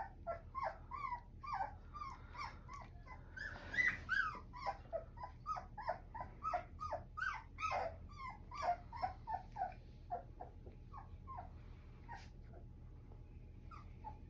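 Young Goldendoodle puppy, about three weeks old, whimpering: a quick run of short, high squeaks, each dropping in pitch. The squeaks thin out and grow fainter after about ten seconds.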